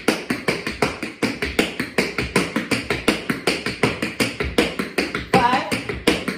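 Tap shoes striking a hard floor in a quick, even run of taps, several a second: parallel shuffle hop steps.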